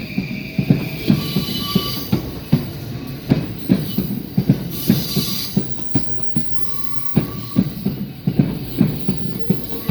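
JR East E235-series electric train rolling over the rail joints at a level crossing, its wheels clacking irregularly several times a second, with thin high wheel squeal coming and going.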